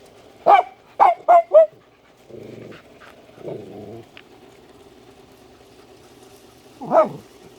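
A dog barking: four quick barks in a row about half a second in, then a single bark near the end.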